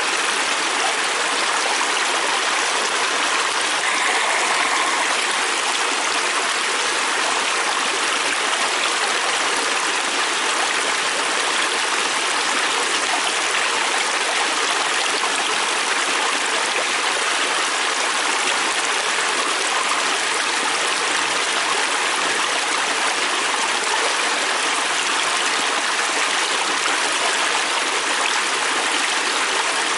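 Fast-flowing river stream rushing steadily over its bed, a continuous even rush of water.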